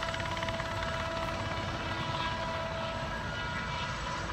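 Ultrasport 496 light helicopter in flight, its engine and rotor giving a steady drone with several steady whining tones over it.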